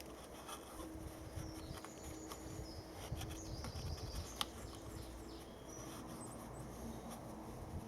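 Faint scattered clicks, taps and rustles from hands handling the generator's oiled foam air filter and its plastic housing, over a low background rumble.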